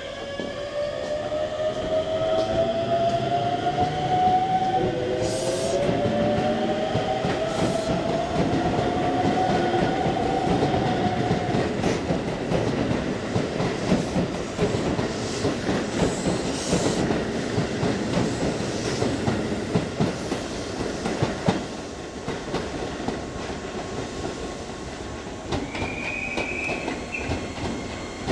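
A Keisei electric commuter train pulling out and accelerating, its motors making a whine that rises in pitch over the first dozen seconds. Then its wheels clatter over the rails as the cars roll past. Near the end a brief high tone sounds for about a second.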